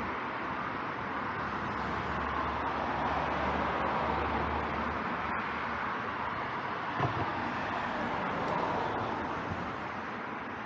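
Steady hum of road traffic. A low drone sits under it for the first half, and there is one light knock about seven seconds in.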